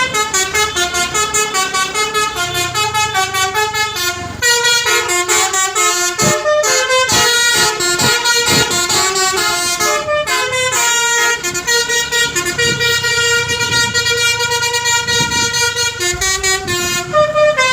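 Toy Tayo bus sounding a 'telolet' musical bus horn: a fast melody of shrill multi-tone horn notes stepping up and down, with a short break about four seconds in.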